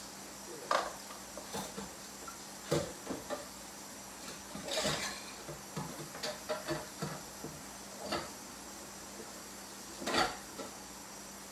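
A dull kitchen knife cutting broccoli, giving a dozen or so irregular knocks and short scrapes of the blade, with a longer scrape about five seconds in.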